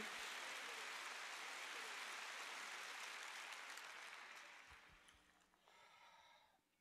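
Audience applause, faint and even, dying away over about five seconds.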